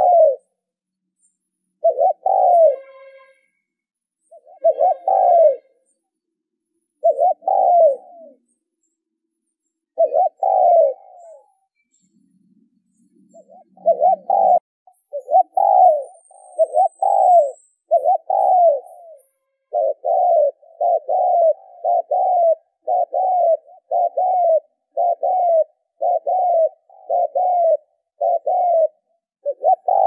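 Spotted dove cooing, one coo after another. The coos come a couple of seconds apart at first, then about halfway through they run on quickly, roughly one a second.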